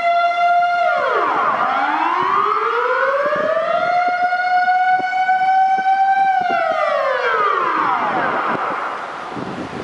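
Dutch outdoor civil-defence warning siren sounding its test alarm. A steady high wail drops sharply about a second in, rises slowly back over several seconds, then falls away and fades near the end as the siren winds down.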